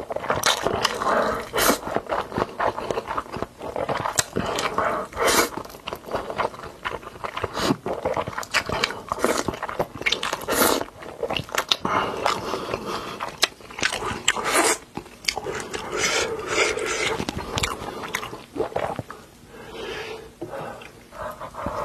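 Close-miked eating sounds: a person biting and chewing crunchy food, with scrapes of utensils, in a dense, irregular run of crackles and clicks.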